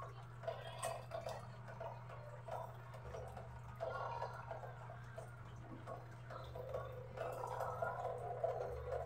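Rain dripping and splashing onto a wet concrete yard: an uneven patter of drops, with a steady low hum underneath.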